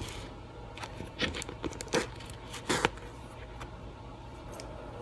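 Scissors snipping and packaging crinkling and tearing as a pad of scrapbook paper is cut open. There are a handful of separate sharp snips and rustles, the loudest a little under three seconds in.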